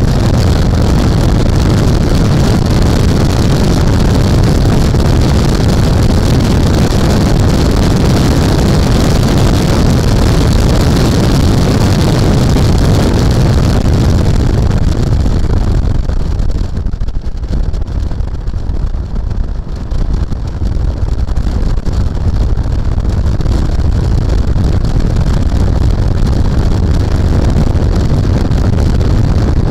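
An MGB's four-cylinder engine running hard at racing speed, heard from the open cockpit with wind rush over the microphone. Past the middle the engine note drops back for several seconds as the throttle is lifted for a corner, then builds back up under power.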